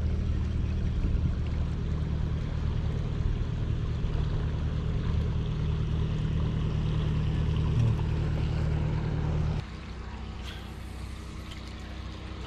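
Canal narrowboat's engine running steadily as the boat motors past, a low even hum. It cuts off suddenly about ten seconds in, leaving a quieter outdoor background.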